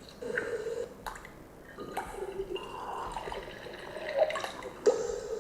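Espresso machine sound effect: coffee dripping and gurgling as it brews, with a few sharp clicks.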